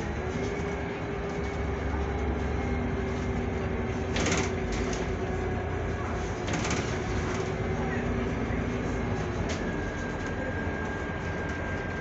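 Inside a Scania Citywide CNG city bus under way: its natural-gas engine and ZF Ecolife automatic drivetrain run steadily with a held whine over road rumble. Two short clattering knocks come about four and six and a half seconds in.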